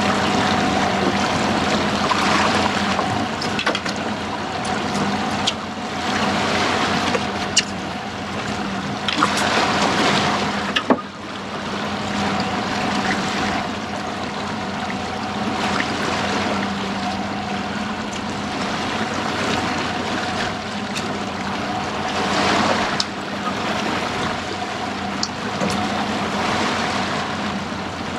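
Fishing boat's engine humming steadily, under the wash of the sea and wind noise, with a few short knocks.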